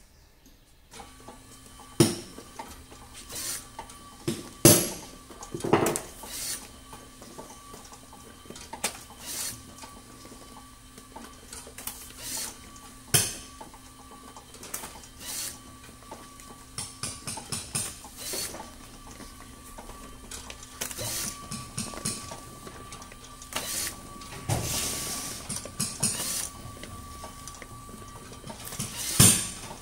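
LAB510 automatic labeller running: a steady motor hum starts about a second in, overlaid with repeated clacks and knocks as paper zip lock pouches are fed off the stack, carried along the belt conveyor and labelled.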